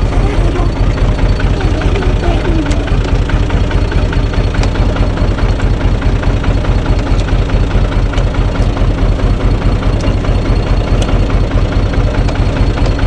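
Universal U445 DT tractor's diesel engine idling steadily, with an even, rapid pulse.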